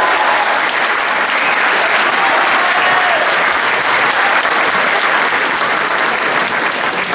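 Crowd applauding steadily, with a voice or two calling out over the clapping.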